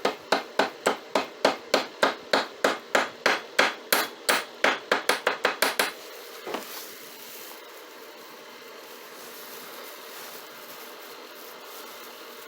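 Hammer tapping a makeshift punch, an old drill bit with a pointed tip, to peen over the back of a ratchet's selector switch so it cannot fall out. About two dozen quick metal strikes come at about four a second, closer together near the end. They stop about six seconds in, with one last tap shortly after.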